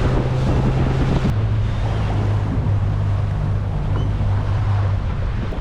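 Boat engine running with a steady low hum that steps down in pitch about a second in, as the throttle eases off, and fades near the end, with wind buffeting the microphone and water noise around the hull.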